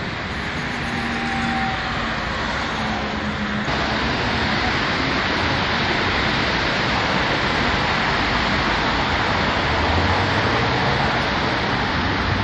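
Steady city street traffic noise, a wash of passing vehicles that slowly grows louder.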